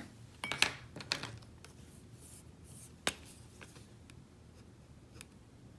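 Small handling sounds of art supplies: a few sharp clicks and taps, the sharpest about three seconds in, over faint scratching of a watercolour marker's fine tip on paper.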